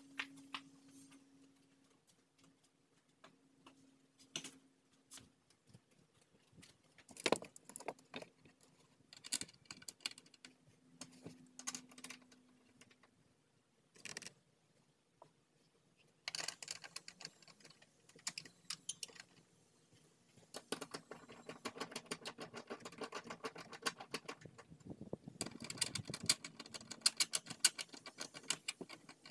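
Metal hand tools clinking and rattling on the car's floor. There are scattered single clicks at first, then long runs of rapid, even clicking in the second half.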